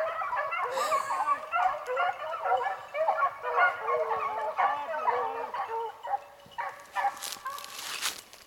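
A pack of beagles baying in full cry on a rabbit's trail, many overlapping yelping bawls at once. The chorus thins out after about six seconds, and a few brief hissy noises come near the end.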